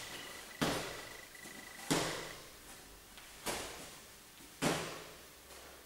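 Four straight punches in boxing gloves landing on a tight double guard held passively with tense arms, each a sharp padded smack with a short echo, a little over a second apart.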